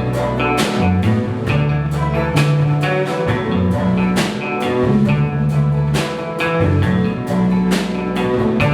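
Live band music: clawhammer banjo and guitar over sustained bass notes, with a drum kit keeping time in regular drum and cymbal hits.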